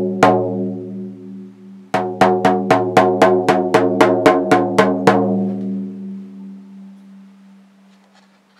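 A drum beaten at a low pitch: a single strike just after the start, then a quick run of about a dozen even beats, roughly four a second, that ring on and fade away over a couple of seconds.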